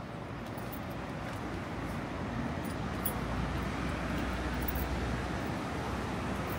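Steady road traffic noise from passing cars, growing gradually louder, with a low engine rumble swelling through the middle.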